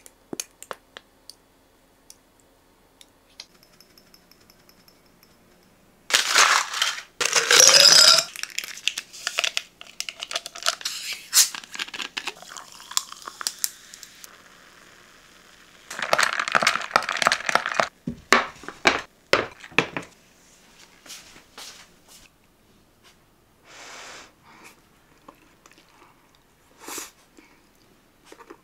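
Kitchen handling noises: plastic packaging crinkling and tearing in two loud spells of about two seconds each, with scattered clicks and knocks in between.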